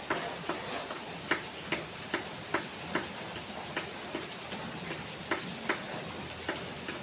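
Rain falling steadily, with water dripping at an even pace, about two or three drips a second.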